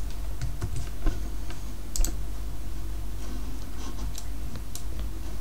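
Scattered computer keyboard and mouse clicks: a few keystrokes and clicks at irregular intervals, some close together, over a steady low hum.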